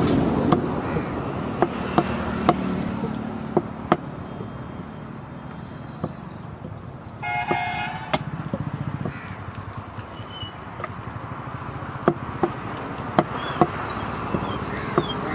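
Meat cleaver chopping mutton on a wooden tree-trunk block: single sharp chops at irregular intervals, often a second or more apart, over steady road-traffic noise. A vehicle horn sounds briefly about seven seconds in.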